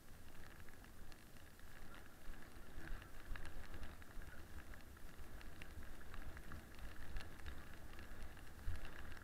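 Toboggan runners sliding fast over packed snow, a steady crackling hiss with many small ticks, under a low rumble of wind on the microphone.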